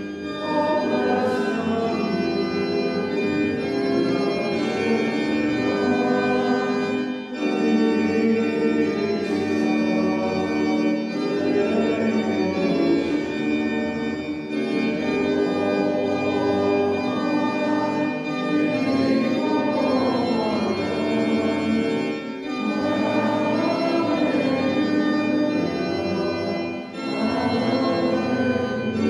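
Organ playing a hymn tune in long held chords, with short breaks between phrases about every seven seconds.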